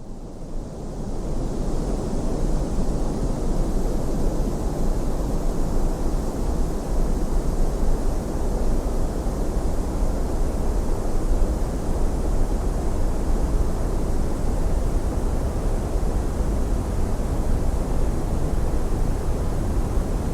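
Synthetic pink noise: an even, steady hiss weighted toward the low end, fading up over the first couple of seconds and then holding level.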